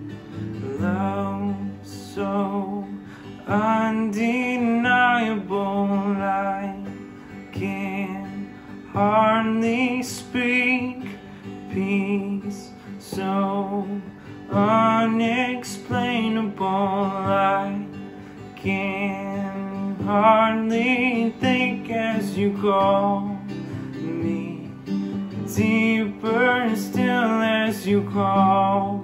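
Worship song: acoustic guitar strumming under a steady sustained backing, with a sung melody coming in short phrases.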